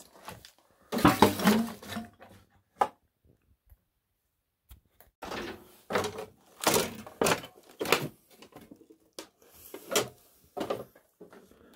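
Irregular footsteps and knocks over debris and junk, with scuffing and rustling, loudest about a second in and pausing briefly before the middle.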